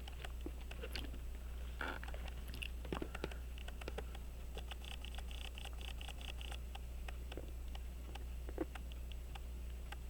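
Small, scattered clicks and taps of fine watchmaker's tools, tweezers and screwdriver, handling tiny screws on a pocket watch movement, with a quick run of faint high ticks about halfway through, over a steady low hum.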